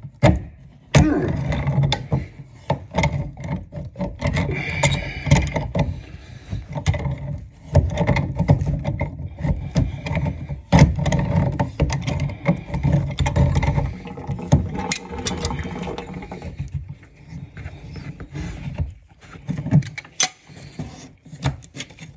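Irregular metal clicks, knocks and scraping from hand tools working a compression angle stop off a copper supply pipe: red-handled pliers gripping the fitting and a compression ring puller being turned on it. Two sharp knocks stand out, about a second in and about halfway through, and the work goes quieter near the end.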